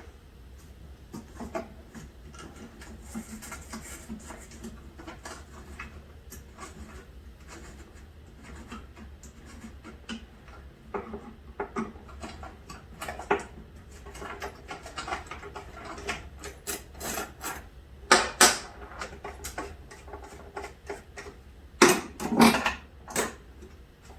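Flathead screwdriver prying and scraping at the sensor's mounting on a table hockey game, with steady rubbing and small clicks, and a few louder knocks about eighteen seconds in and again near the end.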